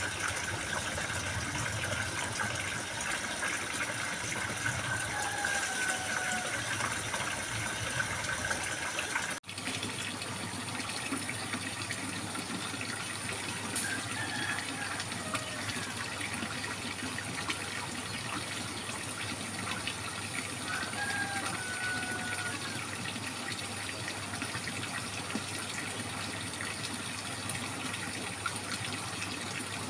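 Babbling, trickling water running steadily, with a momentary break about nine seconds in.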